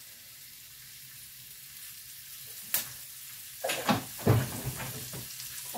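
Minced beef sizzling in oil in a small frying pan, a steady hiss. There is a sharp click about three seconds in and a few knocks about a second later.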